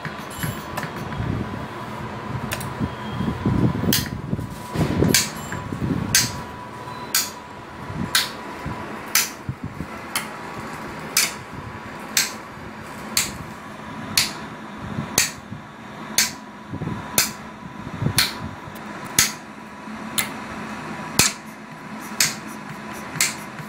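Graviner OMD Mk5 oil mist detector running on a bench: a sharp mechanical click about once a second, over a faint steady whine.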